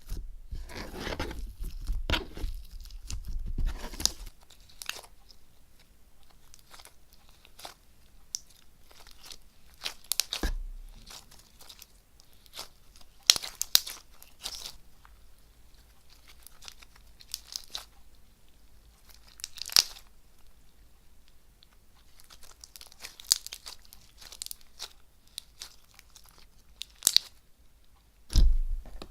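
Gold-leaf-coated slime being squeezed and poked by hand, giving irregular crunchy crackles and pops, with a few louder ones several seconds apart.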